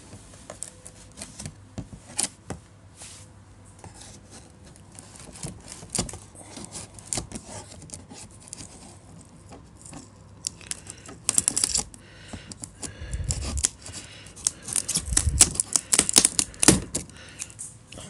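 Plastic film and cardboard packaging being pulled and torn off a vacuum cleaner's box: irregular crinkling and crackling, busier and louder in the last several seconds, with a couple of low thumps against the box.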